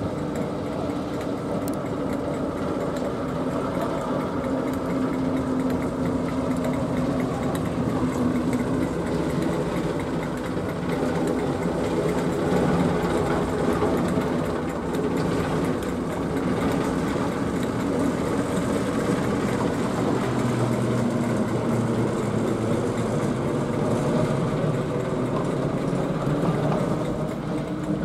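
Class 08 diesel shunter's English Electric six-cylinder engine running steadily as the locomotive moves along the track, a low even drone.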